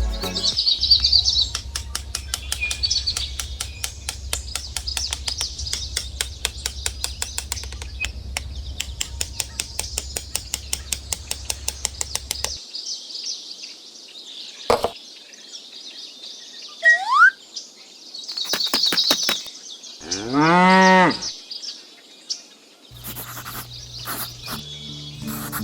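A cow moos once, about 20 seconds in; it is the loudest sound here, a single call lasting about a second and a half. Birds chirp steadily in the background. For roughly the first half there is also a steady low hum with rapid, regular ticking.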